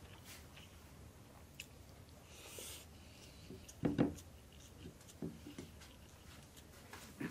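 A man chewing and eating spicy chicken biryani: soft mouth and chewing sounds with scattered small clicks, a brief hiss just under three seconds in, and a louder mouth sound about four seconds in.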